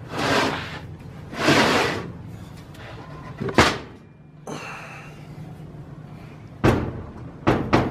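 A bare cast-iron Ford 390 FE engine block being shifted and tipped over on a metal workbench by hand: two short scraping rushes, a sharp knock about three and a half seconds in, and heavy clunks near the end as it is set down.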